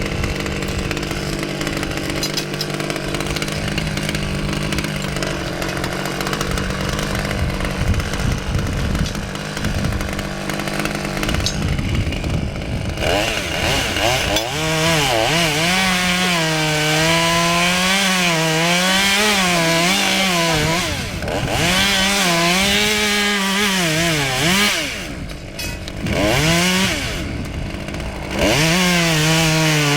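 Husqvarna T540 XP top-handle two-stroke chainsaw running at a steady speed for about twelve seconds, then cutting wood. Its engine pitch rises and falls as the chain bites and frees, with a few brief drops near the end.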